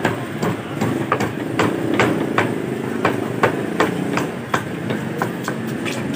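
A curved cleaver chopping a whole fish into steaks on a wooden log block, a steady run of sharp chops about two to three a second, over a steady low rumble.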